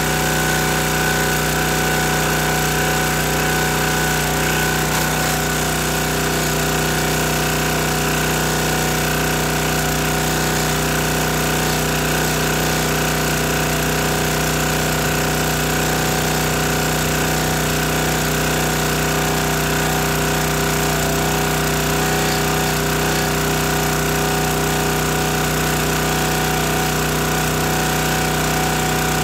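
Small engine of a County Line hydraulic log splitter running steadily at constant speed, with no change in load.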